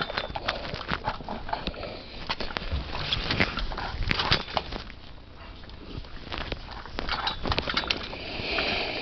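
Scattered clicks and knocks of metal parts being handled and fitted together: the pedestal fan's upper pipe being set onto the office-chair base.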